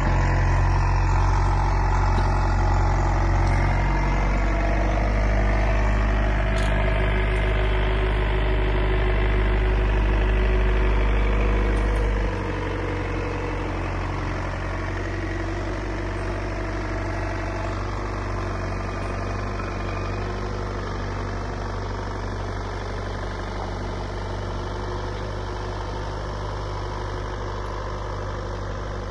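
Telehandler's diesel engine running steadily, its low drone stepping down and getting quieter about twelve seconds in.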